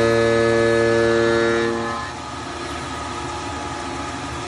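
Tormach 770MX CNC mill cutting a radial-engine crankcase with an end mill, taking about an eighth of an inch: a loud steady droning tone with many overtones that drops away about two seconds in, leaving a quieter steady machine running sound.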